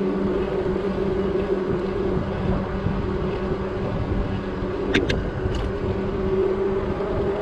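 Wind and road noise from a bike rolling along a paved road, with a steady low hum. A few short, sharp clicks come about five seconds in.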